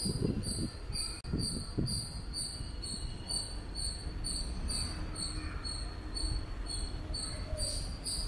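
A cricket chirping steadily, a short high chirp repeated about two to three times a second, over a low background rumble, with some rustling in the first couple of seconds.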